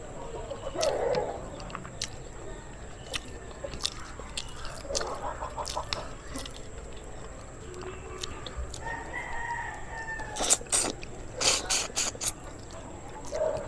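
A rooster crowing a few times, and a run of sharp clicks near the end.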